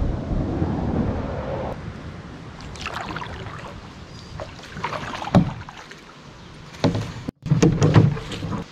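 Canoe being paddled through a narrow, overgrown river channel: irregular splashes and knocks of the paddle and hull, with reeds and leaves rustling and scraping against the boat, busiest near the end. The sound drops out for an instant about seven seconds in.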